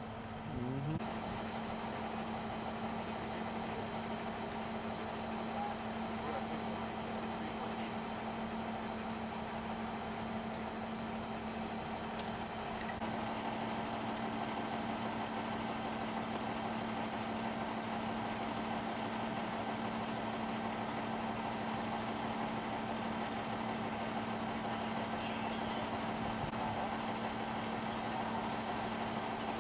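Diesel fire engine idling steadily at a standstill: a constant engine hum with a steady low drone that does not change.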